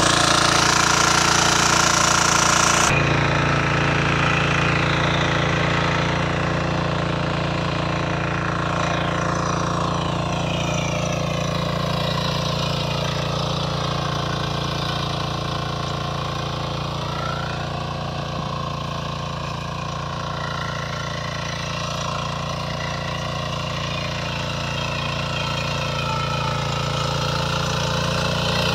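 Walk-behind power weeder's engine running steadily under load while its rotary tines till the soil between crop rows. The tone changes abruptly about three seconds in, and the engine is somewhat fainter through the middle before growing louder again near the end.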